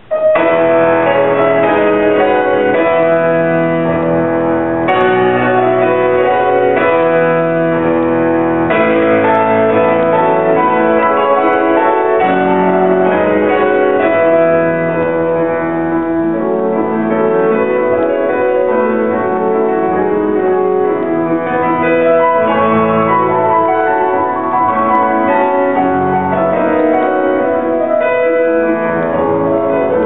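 Grand piano played solo, starting suddenly right at the beginning with full, dense chords and quick high runs.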